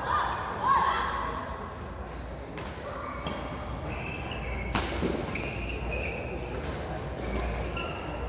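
Badminton play in a large hall: sharp racket strikes on the shuttlecock, short squeaks of shoes on the court mat, and voices in the background.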